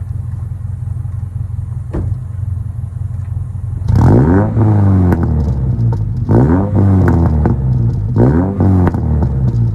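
Subaru boxer engine running at idle and revved three times, each rev rising and falling back to idle. One sharp click about two seconds in.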